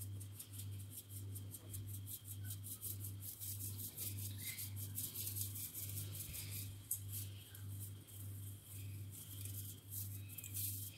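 A hand-held fine-mesh metal sieve of icing sugar being tapped and shaken over and over, a quick light rattle of ticks several times a second. Under it a low pulse repeats about twice a second.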